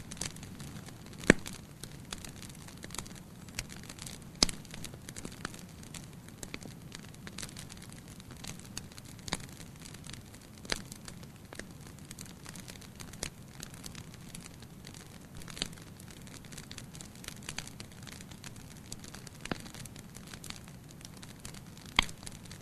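Fire burning in a fireplace, crackling with scattered sharp pops over a steady low rush of flame. The loudest pops come about a second in, at around four seconds, and near the end.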